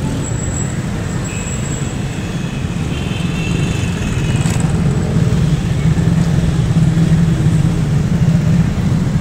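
Steady low rumble of road traffic, with a single sharp click about four and a half seconds in.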